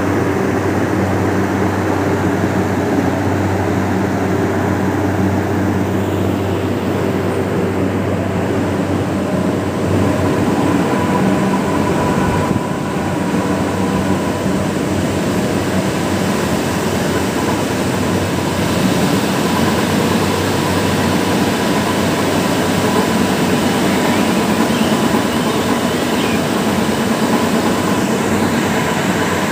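Tea-processing machinery running in a tea factory: a loud, steady mechanical hum and rumble with a faint steady high tone over it.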